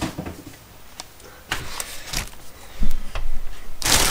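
A clear plastic bag wrapped around a cordless circular saw rustles and crinkles as it is handled, with scattered light knocks and clicks. The crinkling turns loud near the end.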